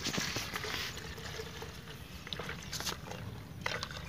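Diesel running in a steady stream from a jerrycan's tap into a plastic measuring jug: a faint pouring trickle.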